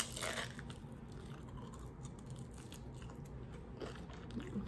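Someone biting into a crispy fried crab rangoon, with one loud crunch right at the start, then faint chewing with small crunches.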